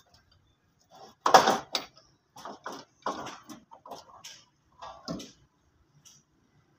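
Irregular metallic clinks and knocks as a 260 tractor's turbocharger is worked loose by hand and pulled off the exhaust manifold, with the engine off. The loudest clatter comes about a second in, and the knocks die away after about five seconds.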